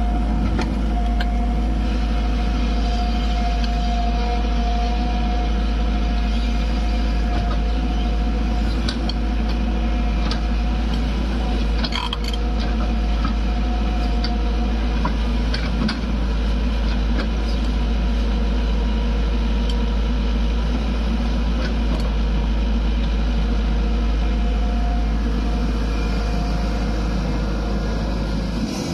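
Tata Hitachi ZAXIS 140 hydraulic excavator's diesel engine running steadily under working load as the machine swings, digs and loads a tipper truck, with a few short knocks from the bucket and digging.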